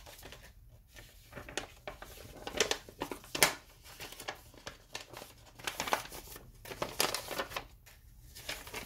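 Sheets of paper rustling and crinkling as they are handled, in irregular short bursts, the loudest about three and a half seconds in.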